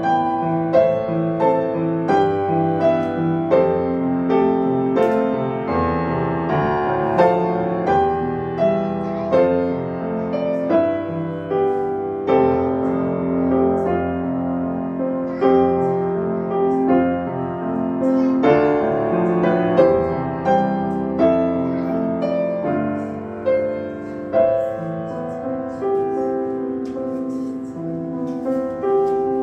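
Grand piano played solo: a continuous flowing melody over sustained chords, notes struck in a steady succession throughout.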